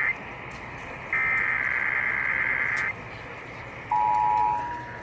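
Emergency Alert System tones over the radio: a buzzy digital SAME header data burst lasting about two seconds, then about a second later the steady two-tone EAS attention signal starts, dropping sharply in level after about half a second but continuing faintly.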